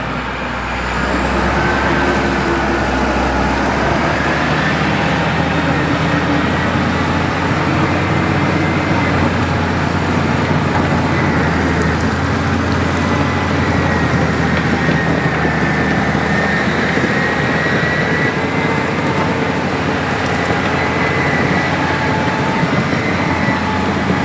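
CAT D6 bulldozer's diesel engine running hard and loud, with a high whine over it that wavers slightly in pitch; it picks up about a second in and then holds steady.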